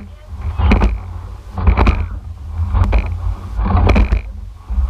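A rowing eight under way, heard from the rigger: the oars clunk in the oarlocks in a steady rhythm, about one sharp clack a second. Underneath, water rushes past the hull and wind rumbles on the microphone.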